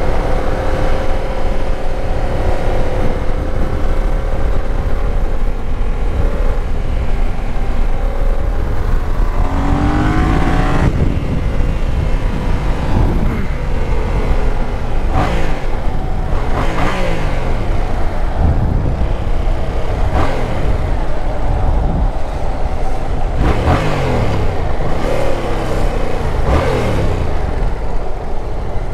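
Yamaha MT-07's parallel-twin engine, ridden and accelerating, rising in pitch and dropping back several times as it revs up and shifts gears, with a sharp rev rise about ten seconds in.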